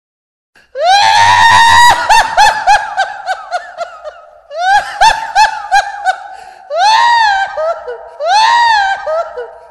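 High-pitched laughing voice in four bursts. The first two rise and then break into quick giggle-like pulses; the last two are single arched notes.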